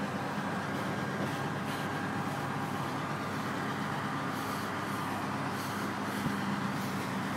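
Diesel engines of truck-mounted mobile cranes running at a steady drone as the cranes hold and lower a boat hull slung beneath them.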